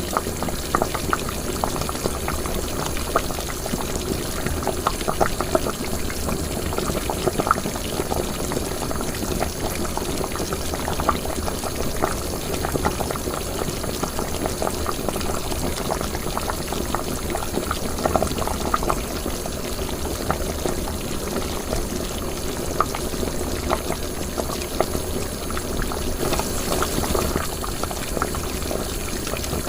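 Liquid boiling in a cooking pot, bubbling steadily with many small irregular pops.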